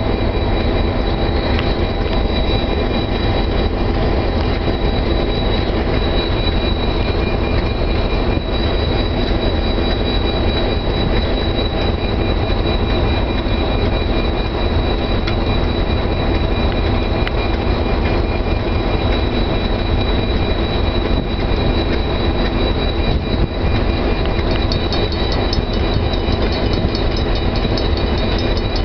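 Diesel locomotives running steadily with a constant high whine, heard from inside a locomotive cab as a train pulls in. A fast, even ticking joins in near the end.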